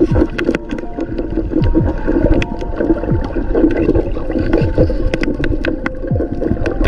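Underwater sound picked up by a submerged camera: gurgling water movement with scattered sharp clicks and many short, low, downward-sliding whooshes as free divers swim and work the fishing net.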